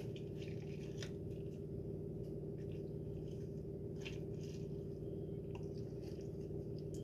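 Hands squeezing and twisting a whole lemon, giving faint soft squishes and crackles now and then, over a steady low hum.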